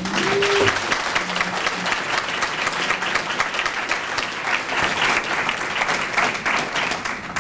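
Audience applauding: many people clapping in a dense, steady patter that starts suddenly, welcoming a speaker to the podium.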